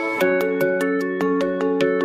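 Background music: a melody of held notes over a steady ticking beat.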